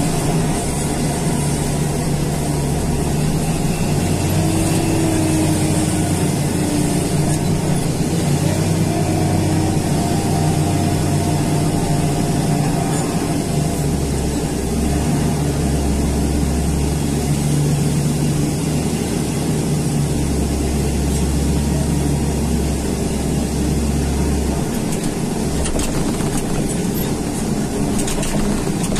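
John Deere front loader's diesel engine running, heard inside the cab. Its note rises and falls several times as the machine drives and lifts its loaded bucket.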